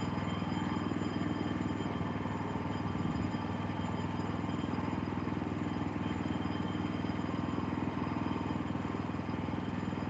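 Gas engine of a Woodland Mills HM126 portable band sawmill running steadily at an even speed.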